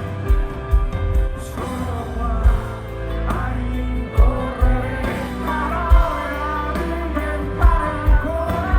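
Live pop-rock band playing, with a heavy bass line, regular drum hits and a melody line on top.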